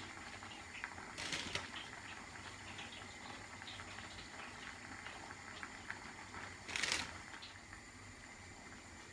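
Fresh salad leaves rustling as they are arranged by hand on a plate, with two louder brief rustles, one a little over a second in and one about seven seconds in.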